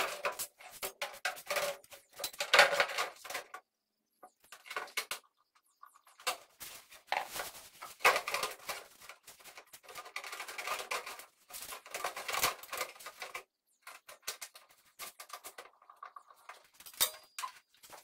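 Rapid, irregular clattering, tapping and scraping as an aircraft engine cowling is handled and worked onto the nose around the propeller, in clusters with a few short pauses.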